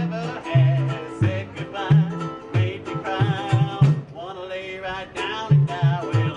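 Jug-band busking music: a banjo picking along with a bucket bass plucking low notes, under a wavering lead melody.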